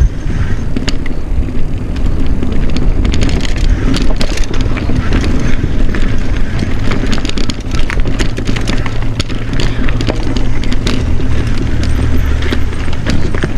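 Mountain bike descending a rocky, rooty trail: the tyres and frame rattle and clack over rocks in a fast, uneven stream of knocks, with the chain slapping, over a steady rush of wind on the microphone.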